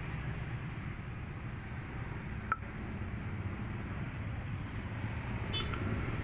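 Steady low rumble of street traffic, with one sharp click about two and a half seconds in.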